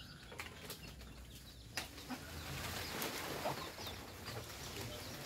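Leaves and branches of a jackfruit tree rustling and knocking as a long picking pole works at the fruit, with a sharp knock a little under two seconds in and a longer rustle after it. Chickens cluck faintly.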